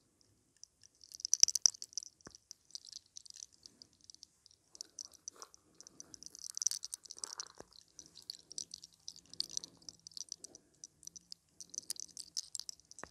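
Fine crackling from small locks of hair being rolled and pulled at the scalp in the hair-cracking technique ('sacar los soles'). It comes in several short bursts of tiny clicks, the loudest about a second and a half in.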